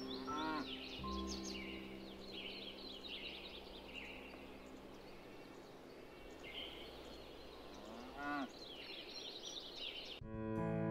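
Outdoor ambience of birds chirping throughout, with a cow mooing twice, once just after the start and once, rising in pitch, about eight seconds in. A soft held music chord fades out in the first few seconds, and piano music comes in at the very end.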